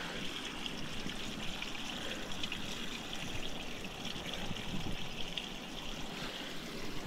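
Steady, even background hiss with no distinct events, of a trickling, water-like kind.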